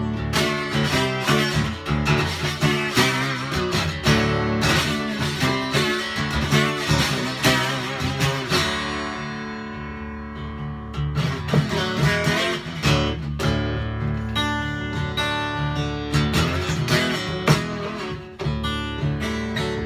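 Acoustic guitar played alone as an instrumental break: strummed and picked chords with no singing. About halfway through the chords are left to ring and fade briefly before the playing picks up again.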